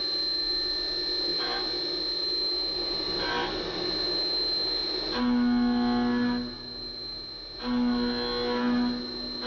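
OPTI mill F310 CNC milling machine cutting a metal block with an end mill: a steady high whine, with a low pitched humming tone that comes and goes in the second half as the cutter moves into and out of the material.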